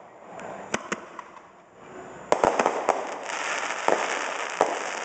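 Aerial fireworks shells bursting: a few sharp bangs, the loudest a little over two seconds in, then a dense run of small crackling pops from the glittering gold stars through the second half.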